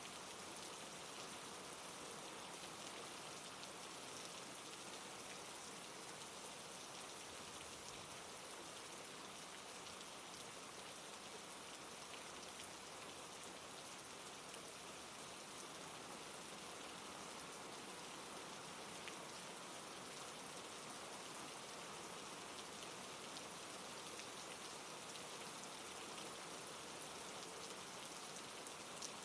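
Steady rushing, splashing water of a recorded waterfall ambience, unchanging in level throughout.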